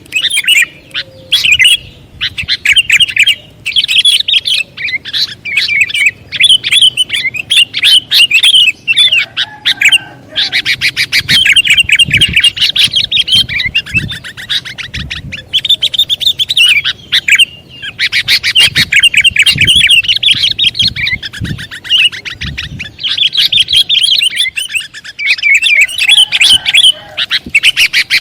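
Sooty-headed bulbul (kutilang) calling continuously: long runs of rapid, sharp chirping notes, broken by short pauses.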